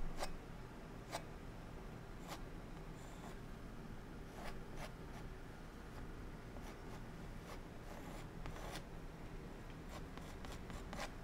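Palette knife loaded with oil paint scraping across a stretched canvas in short strokes, laying in a mountain wet on wet. The strokes come about once a second, then several in quick succession near the end.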